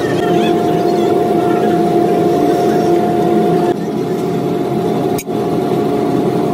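Steady mechanical drone of a running motor, a dense low hum with one constant whine above it. The sound dips briefly about three and a half seconds in and again near five seconds, then carries on.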